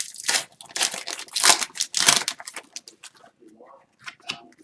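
Plastic wrapper of a hockey trading card pack being torn open and crinkled, loudest in two rustles about one and a half and two seconds in, then softer rustling as the cards are handled.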